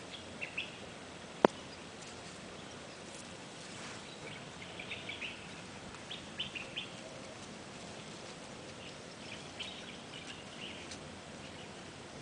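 Small birds chirping in short scattered bursts, with one sharp knock about a second and a half in: shell striking shell as a male tortoise rams a female while courting.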